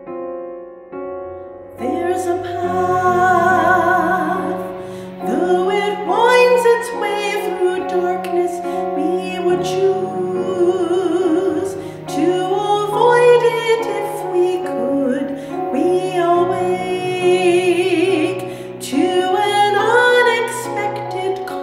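Solo female voice singing a hymn in a trained, operatic style with strong vibrato, accompanied by piano. The piano plays alone at first, and the voice comes in about two seconds in.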